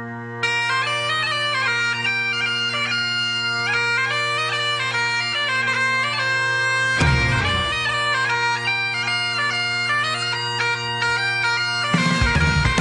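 Bagpipe music: a steady drone under a chanter melody that comes in about half a second in, with a drum hit about seven seconds in and drums joining near the end.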